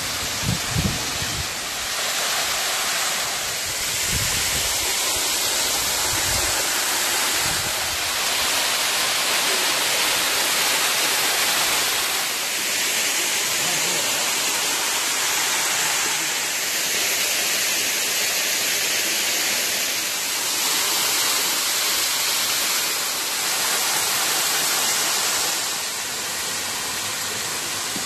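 A waterfall pouring, a steady loud rush of falling water, with a few low thumps in the first few seconds.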